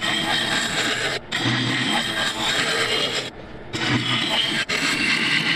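A gouge cutting the inside of a spinning applewood bowl on a wood lathe: a steady rough hiss of wood being peeled away. It breaks off briefly where the tool lifts from the wood, about a second in, for a little longer just past halfway, and once more near the end.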